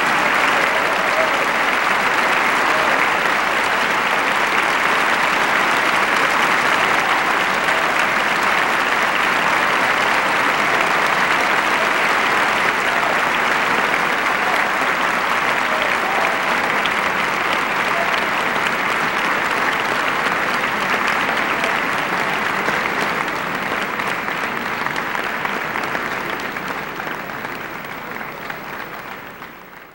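Audience and orchestra applauding steadily after a concert performance, the clapping dying away over the last few seconds.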